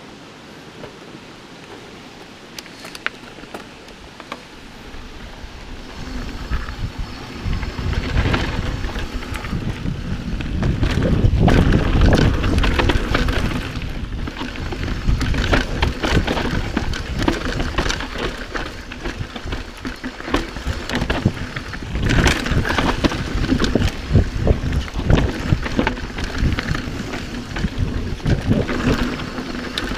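Mountain bike descending rough dirt singletrack: tyres rolling over dirt, roots and rocks, with the bike frame and parts rattling and many small knocks, and wind rushing over the microphone. It starts fairly quiet and gets louder and busier about six seconds in as speed builds.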